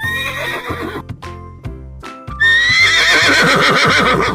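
Horse whinnying twice over children's backing music: a shorter neigh at the start, then a louder, longer whinny from about halfway.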